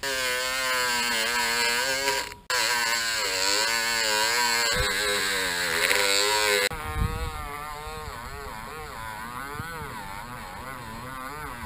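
Electric drill spinning a small cleaning wheel inside the rusty steel bush eye of a suspension trailing arm, scouring rust and nicks out of the bore to leave it smooth. The drill's pitch wavers as it is pressed into the metal. It stops briefly about two seconds in, and after about seven seconds the grinding eases and the drill runs on more quietly.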